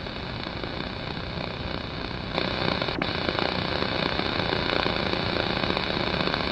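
Steady hiss-like noise that steps up in loudness a little over two seconds in, with a single sharp click about three seconds in.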